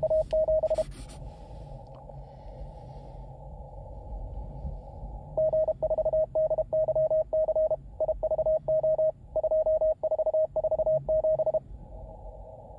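Morse code (CW) received on an Elecraft K2 transceiver: a strong signal sends a single steady tone, keyed fast, that stops about a second in. A few seconds of narrow filtered band hiss with faint weak signals follow, then the strong station keys again for about six seconds from about five seconds in.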